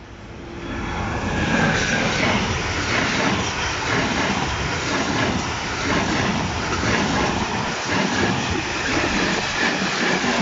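Freight train passing close by, a run of empty container flat wagons rolling past with their wheels clattering on the rails. The sound builds up over the first second as the train arrives, then stays loud and steady.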